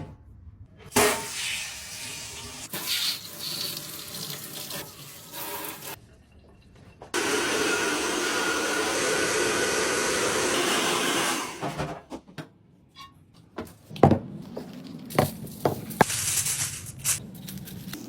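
A string of short workshop sounds; the longest, about seven to eleven seconds in, is a steady rush of running water. Several sharp knocks come near the end.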